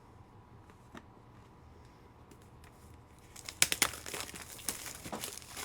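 Quiet for about three seconds, then a run of sharp crinkling and crackling, with two loud snaps near the start of it: a trading-card pack's plastic wrapper being handled and torn open.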